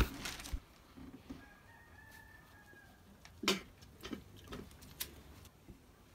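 Mostly quiet room sound: a faint, drawn-out call held on one pitch from about a second and a half in for about a second and a half, then a few short soft knocks and rustles of handling, the clearest about three and a half seconds in.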